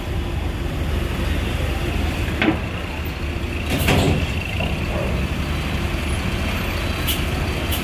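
Large coach's diesel engine idling close by with a steady low rumble. A couple of knocks come in the middle, and a short high hiss of air comes near the end.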